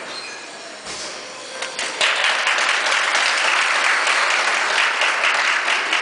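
Audience applauding. It is lighter at first and swells much louder about two seconds in.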